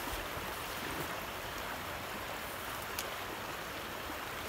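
Fast river current rushing steadily, with a faint click about three seconds in.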